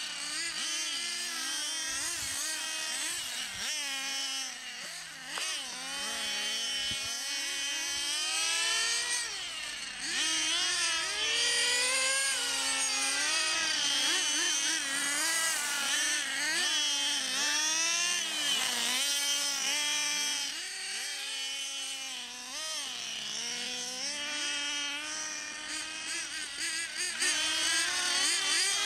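Small glow-fuel engines of nitro radio-controlled cars running at high revs, the high-pitched whine rising and falling over and over as they accelerate and lift off.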